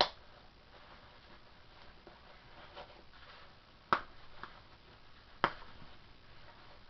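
Snap fasteners and fabric of a GI canteen pouch being handled: three sharp clicks, at the start, about four seconds in and a second and a half later, with faint rustling of the pouch between them.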